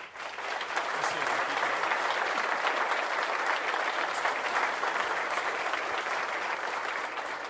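An audience applauding: many hands clapping together, building up over the first second, holding steady, then thinning out near the end.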